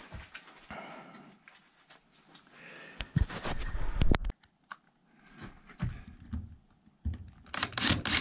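Handling noises and scattered clicks as a power cable is worked in an attic, then, about seven and a half seconds in, a quick run of rhythmic rubbing strokes as the cable is drawn along wood.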